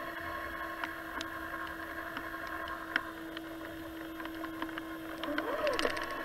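Traxxas Summit RC truck's electric drive giving a steady whine while it sits, with scattered faint ticks. About five and a half seconds in, the motor turns briefly with a whine that rises and falls in pitch, and the sound grows a little louder.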